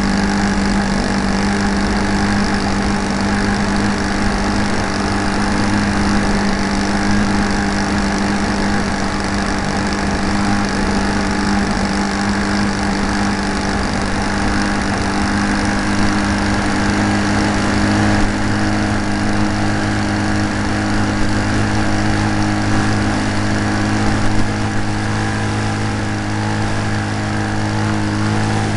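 Great Planes Slow Poke RC model airplane's engine running at a steady speed in flight, heard close up from a camera mounted on the plane.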